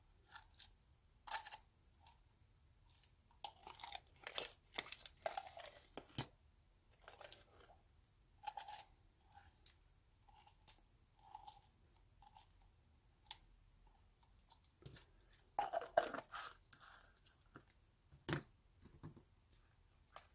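Foam-bead slime being scooped out of a plastic jar with a plastic spoon into a plastic tub: faint, irregular crackles, squelches and small clicks, the beads crunching and the slime pulling away.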